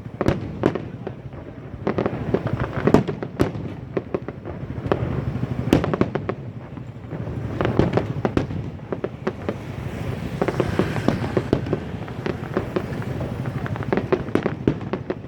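Fireworks display going off: a rapid run of sharp bangs and cracks from shells bursting, with a denser crackling stretch a little past the middle.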